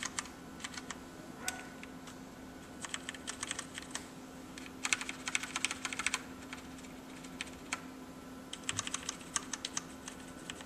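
Typing on a mechanical keyboard with linear Cherry MX switches: bursts of rapid keystrokes, each a second or so long, with short pauses between.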